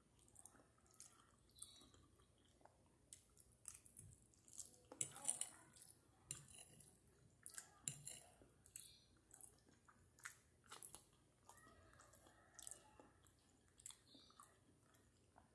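Faint close-up chewing of spaghetti: soft wet smacks and mouth clicks scattered irregularly, with a metal fork touching the plate about eight seconds in.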